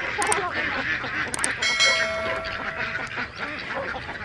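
A large flock of domestic white ducks quacking continuously, many calls overlapping. Two sharp clicks and a ringing chime that holds for about a second and a half, from a subscribe-button animation, come in during the first two seconds.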